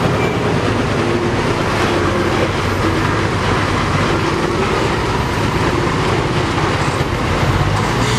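Diesel truck engine running steadily at low speed as a heavy truck crawls close past through deep mud ruts.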